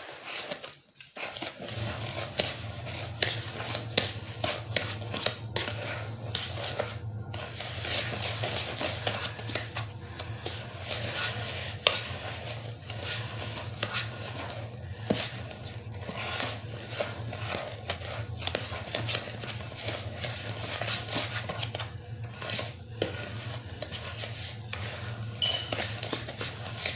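A utensil stirring a thick mix of sugar and coconut oil for a sugar scrub in a bowl: continuous gritty scraping with many small clinks against the bowl. A steady low hum runs underneath from about a second and a half in.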